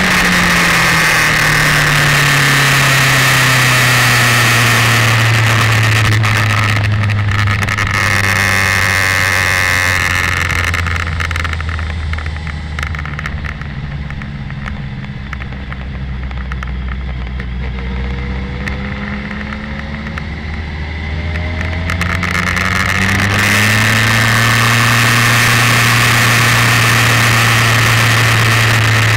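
Kawasaki Ninja ZX-12R's inline-four engine and wind rush heard from the bike at road speed. The engine note drops in the first couple of seconds as the throttle is eased, the wind noise fades through the middle as the bike slows, then the engine climbs again and the wind rises back about 23 seconds in.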